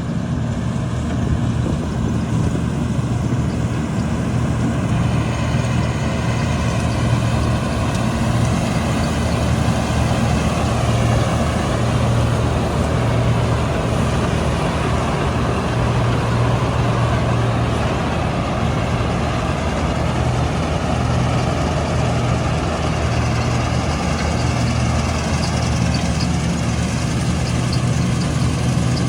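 Heavy diesel engine of a combine harvester running steadily, with a low engine hum and a busier mid-range machinery noise that fills in about five seconds in.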